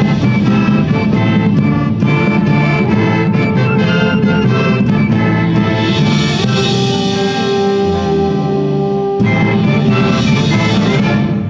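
Instrumental ensemble music with a steady beat of light percussion ticks, moving into long held chords in the second half.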